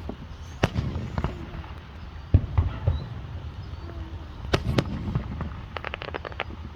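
Fireworks going off: separate bangs at irregular intervals, the loudest and deepest about a third of the way in, then a quick string of crackles near the end.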